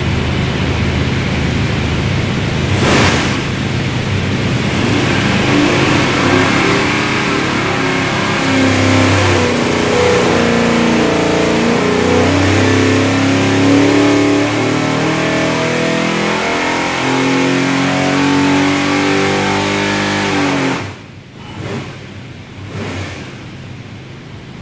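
Carbureted 582 cubic-inch big-block Chevy V8 with a hydraulic roller cam running loud on an engine dyno, its pitch shifting in steps as it is pulled through the rev range. About 21 seconds in it drops off suddenly to a much lower level.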